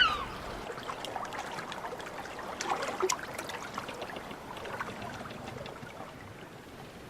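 Water trickling and lapping, fairly faint, with scattered light ticks and small splashes through it.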